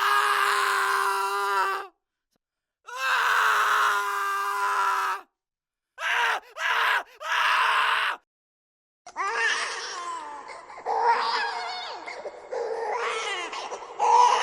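A run of high-pitched horror screams: two long screams each held on one pitch, then three short screams in quick succession. From about nine seconds in come overlapping wailing screams whose pitch slides up and down.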